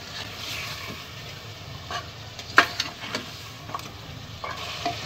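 Meat pieces frying in masala in an aluminium pressure cooker, sizzling steadily while a steel ladle stirs them. The ladle scrapes and clinks against the pot a few times, with the sharpest clink about two and a half seconds in. This is the bhuna stage, the meat being fried in the spice paste.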